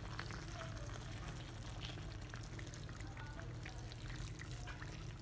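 Boiling water poured from a metal kettle into a pot of meat and leafy vegetables, a steady trickle and splash, over a low steady hum.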